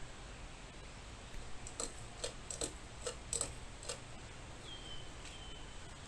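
Hunter Builder's Deluxe ceiling fan running quietly on low speed, with a run of about eight light, uneven ticks about two seconds in.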